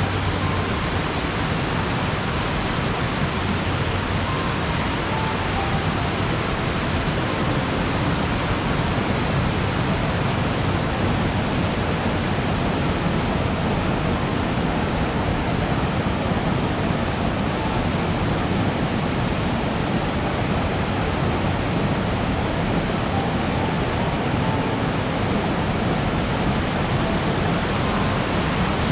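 Mamon Falls, a waterfall, rushing steadily: a constant, unbroken roar of falling water.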